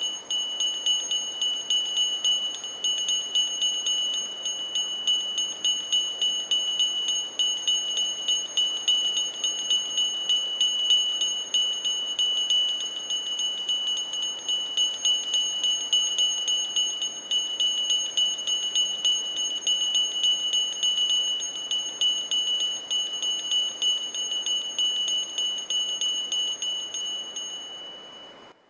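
Altar bells rung continuously in a steady rhythm as the monstrance is raised in benediction, a bright jingling ring that fades out and stops near the end.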